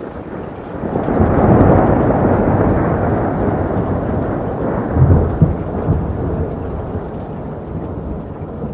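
Thunder with rain: a long rolling rumble that builds over the first couple of seconds, swells again about five seconds in, then slowly dies away.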